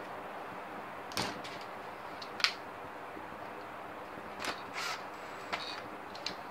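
Scattered light clicks, taps and brief rustles from projector parts being handled on a workbench, the sharpest click about two and a half seconds in, over a steady low hum.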